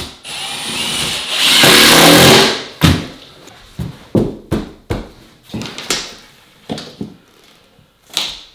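Cordless drill driving a screw through a scrap vinyl-plank piece into the OSB subfloor, running for about two and a half seconds with a rising whine, to anchor the plank row in place. Then a string of short, sharp knocks and clicks.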